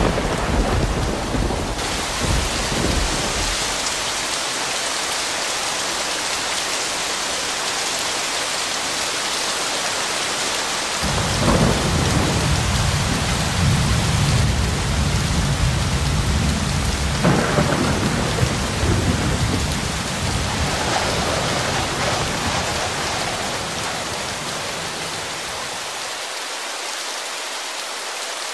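Steady rain, with a low rumble at the start and again through the middle that fades out near the end.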